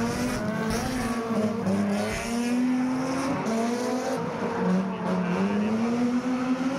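Drift car's engine revving up and falling back several times as it slides around the course, with tyres screeching over it.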